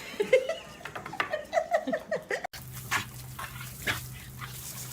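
A dog whining in a string of short, pitched cries that rise and fall. Then, after a sudden cut, a steady low hum with a few scattered clicks.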